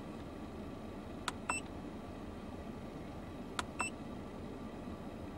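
Two button presses on a handheld automotive scan tool's keypad, about two seconds apart, each a click followed by a short high beep. Under them runs the steady low hum of the car's engine idling.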